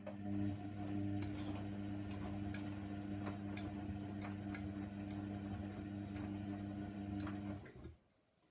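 Hoover Nextra 6 washing machine's drain pump running with a steady hum, irregular small clicks sounding over it, then cutting off abruptly near the end.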